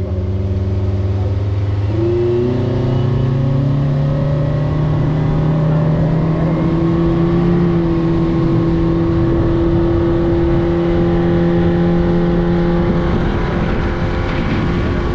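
A 50 hp outboard motor pushing a small speedboat at speed. Its note climbs over the first two seconds as it accelerates, then holds steady, and shifts near the end.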